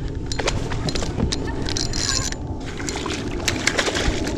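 Water sloshing against a kayak hull, with scattered small clicks and knocks.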